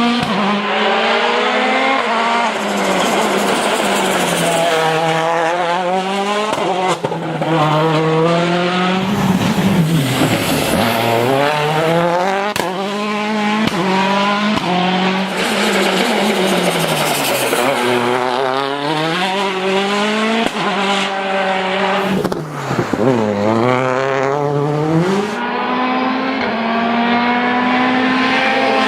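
The Citroën DS3 WRC rally car's 1.6-litre turbocharged four-cylinder engine is driven hard. Its note climbs and drops over and over as it works through the gears, with tyre noise beneath.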